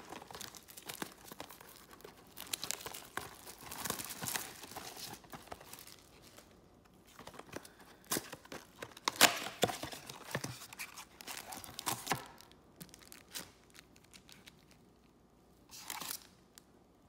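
A cardboard trading-card blaster box being unwrapped and opened by hand: irregular tearing and crinkling of packaging with sharp crackles, loudest about nine seconds in, thinning to scattered clicks and one last rustle near the end.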